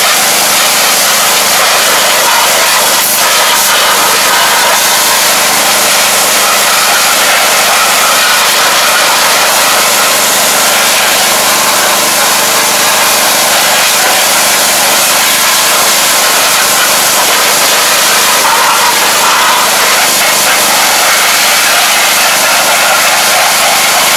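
Pressure washer running steadily: its motor hums under the loud, continuous hiss of the high-pressure water jet blasting mud off a rice transplanter.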